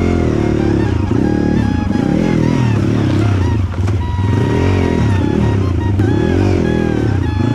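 Dirt bike engine revving up and down repeatedly as it rides a trail, with background music over it.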